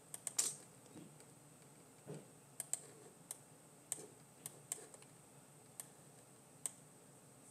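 Faint computer mouse clicks, about a dozen at an irregular pace, as wave labels are placed and the chart is zoomed on a charting program.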